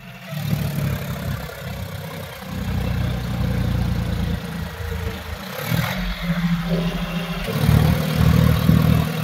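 John Deere 5205 tractor's three-cylinder diesel engine running hard under load while pulling a harrow at high throttle, its note surging and dipping. The tractor is labouring, its wheels slipping under the load.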